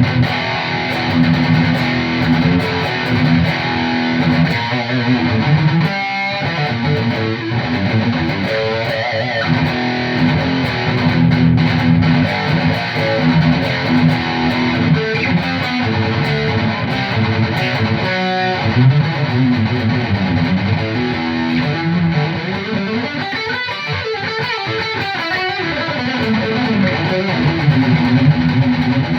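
Electric guitar played through the high-gain rhythm channel of an ENGL Fireball amplifier, with no effects but a noise gate: heavy distorted rhythm riffing with chugging chords.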